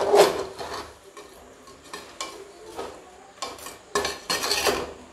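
A metal spoon stirs a thick vegetable and paneer mixture, scraping against the side of an aluminium pressure cooker in a series of irregular strokes.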